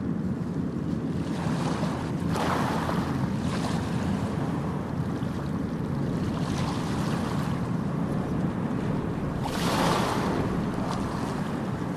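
Ocean surf on a beach: a steady low rumble of waves, with two louder waves breaking and washing in with a hiss, one about two seconds in and another about three quarters of the way through.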